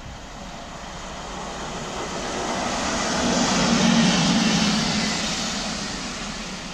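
A convoy of three coupled locomotives (a Class 90 and a Class 92 electric and a Class 66 diesel) running through the station at speed. The rumble and rush of wheels on rail swell to a peak about four seconds in, then fade as the locomotives pass.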